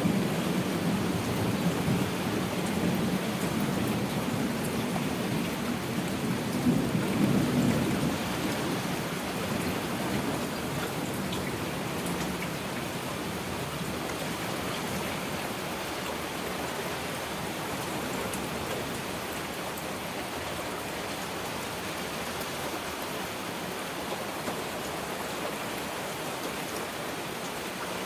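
Heavy rain falling steadily, with a low rolling rumble of thunder in the first third that swells to its loudest around seven seconds and dies away by about ten seconds.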